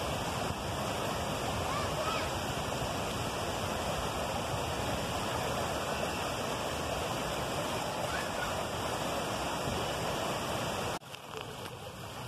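River water rushing steadily over rocks in a shallow rapid. Faint distant voices call out now and then. Near the end it cuts suddenly to the quieter flow of a calmer stretch of river.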